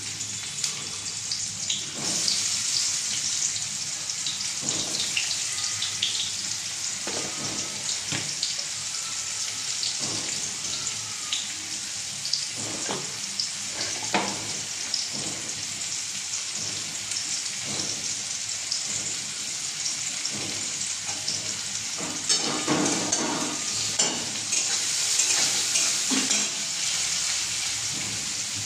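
Food frying in hot oil in a wok: a steady sizzle with scattered pops and a few short knocks.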